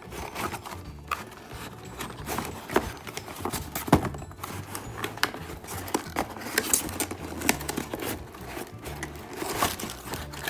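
Cardboard shipping boxes being handled and opened by hand: irregular rustling, scraping and tearing of cardboard with many small knocks, the sharpest about four seconds in.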